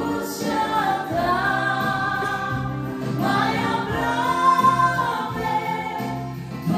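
Live Christian worship song: a woman singing long held notes over sustained electronic keyboard accompaniment, amplified through PA speakers.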